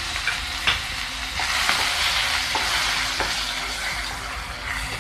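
Chopped onions sizzling hard in hot oil in a kadai, just after being dropped in, with a few sharp clicks of a spatula against the pan. The sizzle eases slightly toward the end.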